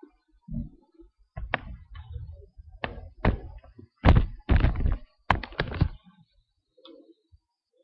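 Handling noise from a webcam being moved about: a string of thunks and knocks starting about a second and a half in, loudest and most crowded between four and six seconds, then stopping.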